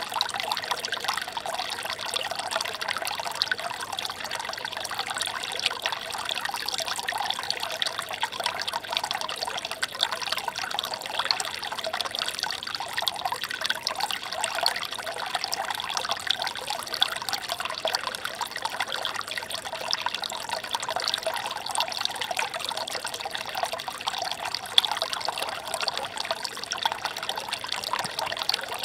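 Shallow stream flowing over stones, a steady trickling and babbling with many tiny splashes.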